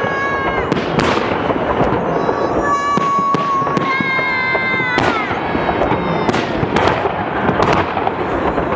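Fireworks salute: a rapid series of sharp bangs from bursting shells over a continuous crackling din, with drawn-out whistling tones that sag slightly in pitch.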